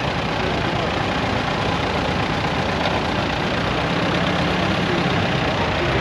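Vintage David Brown tractor engine running steadily at low revs.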